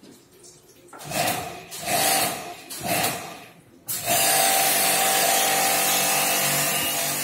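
Electric jet pump (portable pressure washer) used for air-conditioner servicing: three short bursts, then it starts about four seconds in and runs steadily, a motor hum with a hiss.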